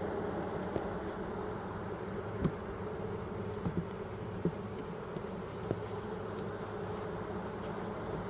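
Honeybees buzzing steadily around an open hive, a dense drone of many bees, with a few light knocks in the middle.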